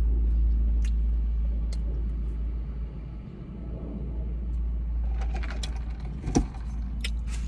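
Steady low rumble of a car idling, heard from inside its cabin, with a few faint clicks and rustles in the second half.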